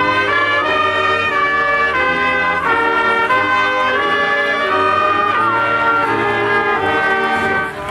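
A brass ensemble of trumpets, trombones and tuba, joined by saxophones, playing a sustained chordal passage, the chords changing every half second or so; the sound dips briefly near the end.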